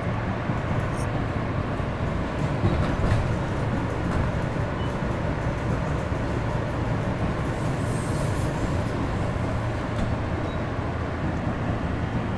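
Subway train running along the tracks, heard from inside the car: a steady rumble of wheels on rail, with a few faint clicks.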